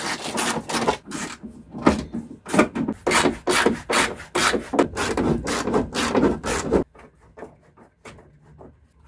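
Ratchet wrench rasping in rapid bursts of clicks as 10 mm bolts are undone, stopping abruptly about seven seconds in.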